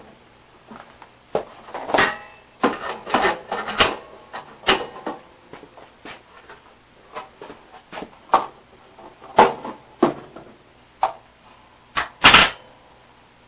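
Irregular clicks and knocks as the parts of a spring-loaded pendulum-and-lever machine are handled, with no steady rhythm; the loudest knock comes about twelve seconds in.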